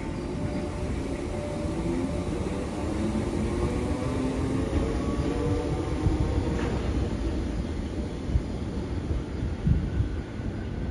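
Merseyrail Class 508 electric multiple unit pulling away and accelerating. The traction motors whine, rising in pitch over a low rumble of wheels on rail, with a few thumps in the second half.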